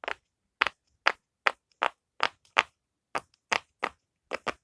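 Square rainbow silicone pop-it fidget toy, its bubbles pressed one after another on its good side: about a dozen crisp pops, roughly three a second, with a brief pause midway.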